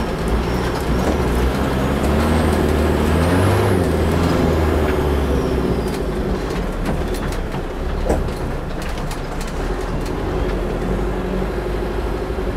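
Toyota 15B-T four-cylinder turbo-diesel in a Land Cruiser FJ40 running under way on a rough dirt track. Its revs rise and fall around the third and fourth seconds, with a high turbo whistle following them, then settle steadier. A run of sharp knocks and rattles comes between about six and nine seconds in as the truck jolts over the bumps.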